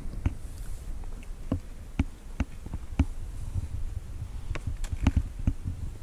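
Clear plastic bag crinkling and crackling in irregular sharp clicks as a snack is handled, over a low rumble of wind on the microphone.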